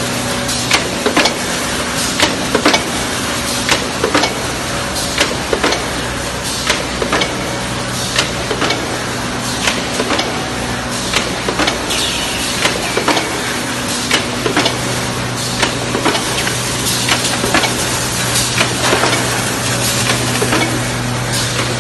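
Power press forming aluminium foil food containers, running with a steady hum and hiss and repeated sharp clacks, about one or two a second.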